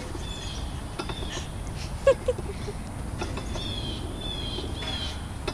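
Outdoor ambience: a steady low rumble with repeated short, high chirps, and one brief loud call about two seconds in.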